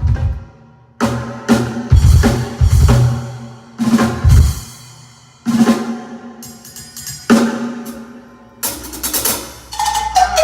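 Drum kit played on its own for a sound check: separate drum hits with pauses between them, some with deep bass drum thuds, then a cymbal crash and a quick tom fill stepping down in pitch near the end.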